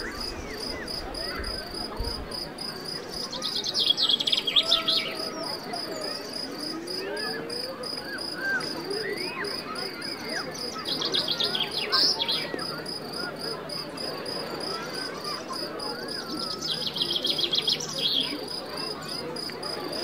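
Crickets chirping steadily in a fast, even pulse. Three times, about four seconds in, around eleven seconds and near the end, a bird breaks in with a brief, rapid trilling song that is the loudest sound.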